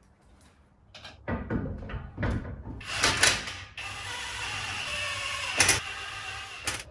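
Hand-tool and metal clanks and knocks as a coilover strut assembly is fitted back onto the car, followed by about three seconds of steady mechanical whirring with a sharp click partway through.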